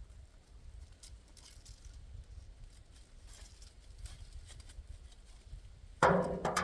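Faint rustling and scattered light clicks of squash vines and leaves being handled, over a low wind rumble on the microphone. A voice starts near the end.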